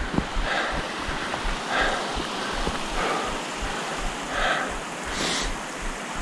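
A hiker breathing hard on a steep climb, in a steady rhythm of roughly one puff a second, over a steady hiss.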